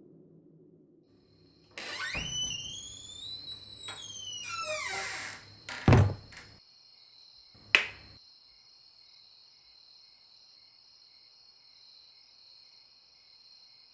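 Horror sound-design effects: a sudden sweeping, gliding synthetic whoosh whose pitch bends up and then falls away, then a heavy deep hit about six seconds in and a sharper second hit near eight seconds. A faint high steady tone lingers after the hits.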